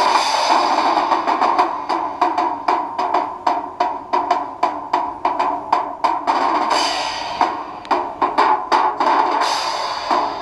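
Drum kit solo: rapid snare and tom strikes with cymbal crashes, about three to four hits a second. For the first two seconds a noisy wash of crowd cheering is loudest, and it swells again twice under the drumming.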